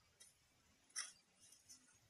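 Near silence with a few faint short clicks or taps, the sharpest about a second in.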